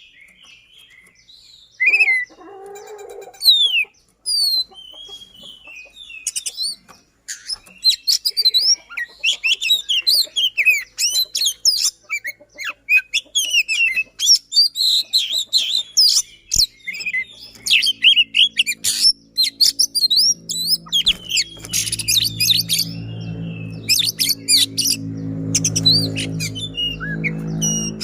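Oriental magpie-robin singing a fast, dense song of rapid chirps, whistles and trills with sharp high notes. A low steady hum comes in about halfway through and grows louder.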